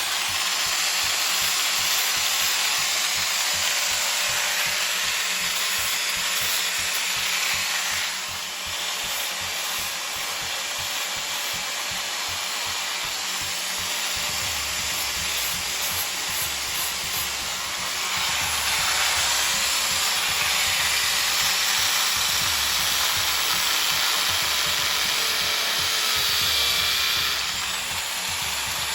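Power sander running against a large wood root, a steady abrasive hiss that eases off about eight seconds in and grows louder again around eighteen seconds.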